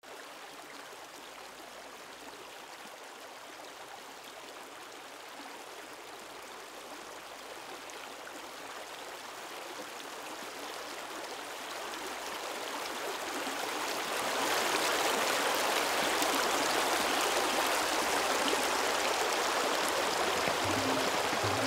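Shallow stream running over stones: a steady rush of water that fades in, grows louder, and is fullest from about fourteen seconds in.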